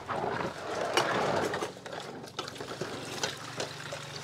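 Water splashing in a basin as dishes are washed by hand, strongest for the first couple of seconds and then quieter, with a few short clinks of dishes.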